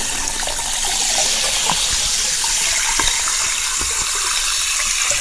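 Steady rushing water: an even, hissing wash of sound that holds level throughout, with a few faint ticks.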